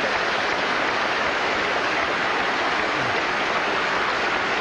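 Large audience applauding, a steady even clapping.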